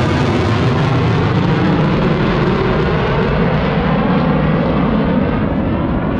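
Loud, steady rush of jet noise from an F-22 Raptor's twin turbofan engines passing overhead, growing duller as the high end fades while the jet draws away.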